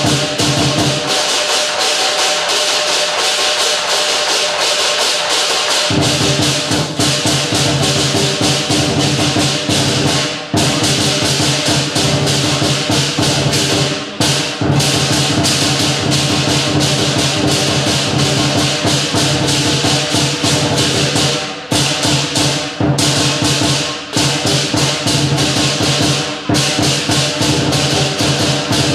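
Traditional lion dance percussion: a large drum beaten in quick strokes, with cymbals clashing and a gong ringing. The deep drum tones drop out for a few seconds soon after the start and then return, with a few brief breaks later.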